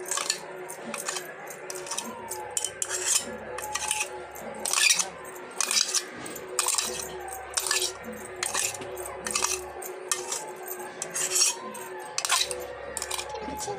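A metal spoon scraping and knocking inside a stainless steel jar, clearing thick mango chutney out into a steel bowl: irregular scrapes and clinks, several each second.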